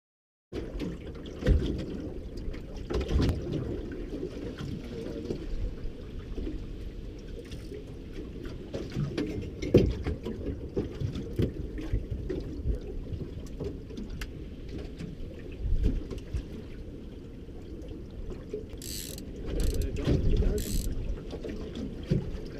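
Gear being handled aboard a small boat: scattered knocks, clicks and clatter over a steady low rumble, with a few brief hissing bursts near the end.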